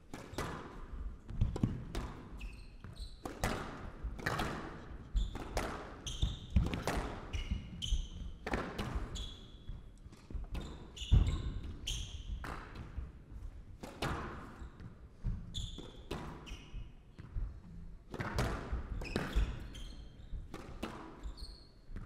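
Squash rally: the ball struck by rackets and hitting the court walls about once a second, with short high squeaks of court shoes on the wooden floor between shots.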